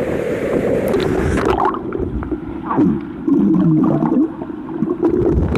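River water gurgling and bubbling, heard through a waterproof phone's microphone as it goes underwater: open-air water and wind noise, then about two seconds in the sound turns muffled, with the high end cut away.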